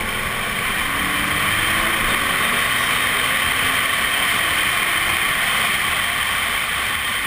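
A car driving down a drag strip, recorded from a hood-mounted camera: a steady rush of wind over the camera covers the engine, whose note climbs in the first couple of seconds.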